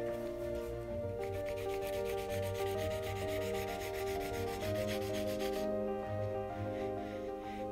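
Pencil lead rubbed quickly back and forth over paper laid on a rough wooden board, taking a frottage of the wood grain: a fast, even scratching that starts about a second in and stops a couple of seconds before the end, over soft background music.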